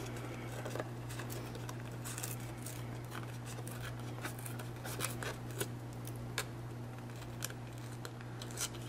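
Patterned paper being torn by hand in small nicks along its edge to distress it: a series of short, crisp little rips and paper crackles, over a steady low hum.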